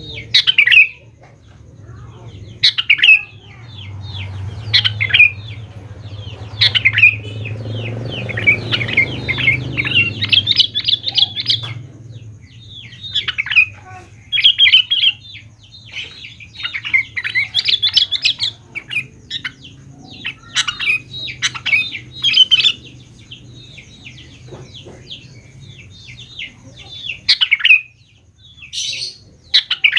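Sooty-headed bulbul (kutilang) singing in full voice: short, bright, chattering call phrases repeated every second or two, over a low steady hum.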